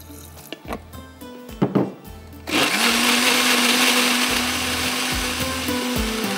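Electric countertop blender switching on about two and a half seconds in and running steadily with a constant hum. It is grinding boiled tomatoes, garlic and green chillies with spices and a little water into a paste. Before it starts, a few sharp knocks.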